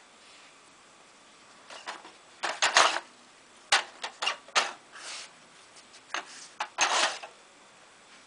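A cross fox nosing at a plastic sliding-cover dog treat puzzle: irregular plastic clacks, knocks and short sliding scrapes as the covers and cones are pushed about, about a dozen in all, the loudest near the middle.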